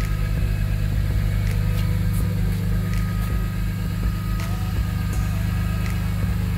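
A BMW E46 M3's straight-six engine idling steadily, a low, even drone with no change in speed.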